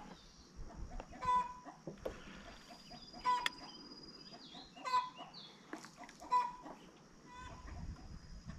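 A bird's short calls, repeated every second or two, over a faint steady high hiss.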